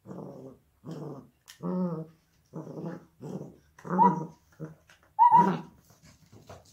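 Beagle puppy play-growling at a toy mouse in short repeated bursts, about one every half second or so, with high yelping notes in the loudest bursts about four and five seconds in.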